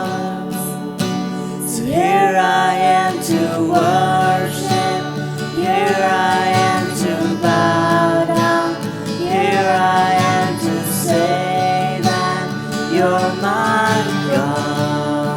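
Worship music: a melody line that slides up into each of its notes, held over a steady guitar-led accompaniment.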